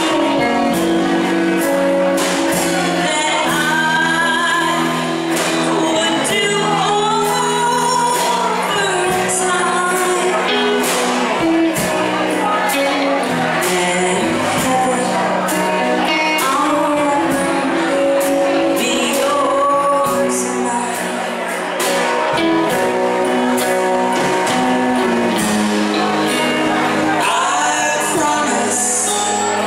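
A band playing a slow song live, with acoustic guitar, electric guitar, bass guitar and drums.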